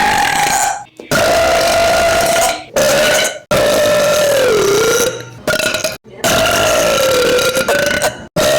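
A cartoon boy's long, drawn-out, voiced burp, repeated in several stretches that each cut off abruptly. Once or twice the pitch sags low and comes back up.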